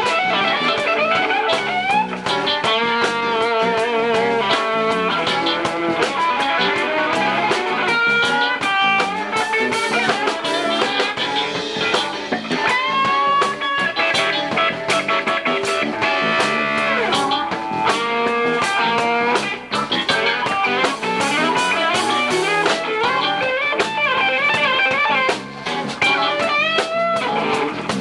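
Electric guitar solo over drums: quick runs of notes and bent, wavering held notes in a blues-rock style.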